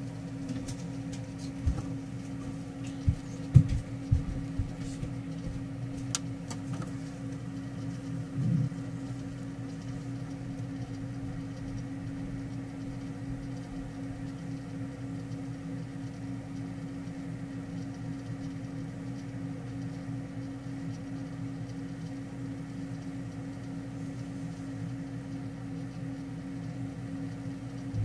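Steady low mechanical hum from a running motor or appliance, with a few soft knocks and taps in the first nine seconds.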